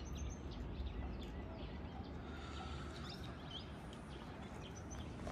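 Faint outdoor ambience: a few short bird chirps scattered over a low, steady rumble.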